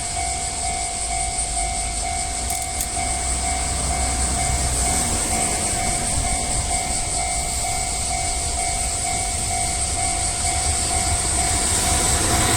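A JR Freight train hauled by an EF210 electric locomotive rumbles through a level crossing while the crossing's electronic warning bell rings in an even, repeating pattern. The bell stops near the end as the train keeps rolling.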